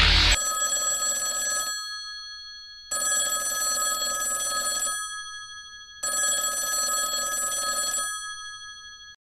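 Mobile phone ringing for an incoming call: three rings about three seconds apart, each fading away, and the ringing cuts off suddenly just before the end.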